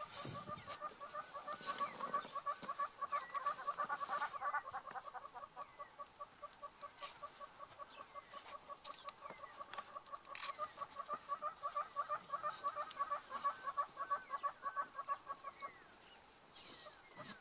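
A bird calling in a long run of rapid, evenly repeated harsh notes, fading out near the end, with a few brief sharp cracks or rustles in the background.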